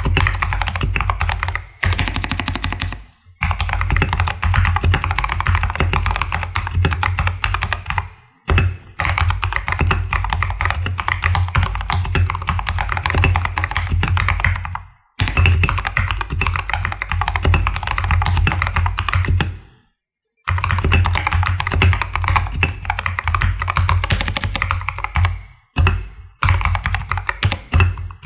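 Vortex VX8 mechanical keyboard being typed on fast in a typing test, in long runs of dense keystroke clacks broken by several short pauses. It is modded with dampening foam in the bottom case, band-aid-mod stabilizers and tactile Gateron Brown switches lubed with Krytox 205g0.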